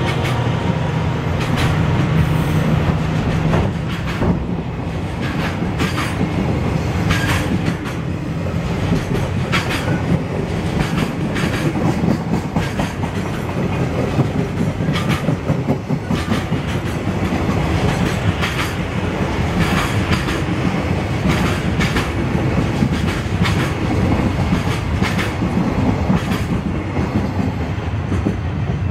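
Long container freight train of loaded flat wagons passing close by: a steady rumble of steel wheels on rail, with irregular clickety-clack as the wheelsets cross rail joints.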